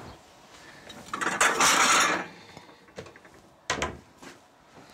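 Kitchen handling sounds: a loud dry rattling rush lasting about a second as a package is taken from a wall cupboard, then a click and a sharp knock of the cupboard door shutting.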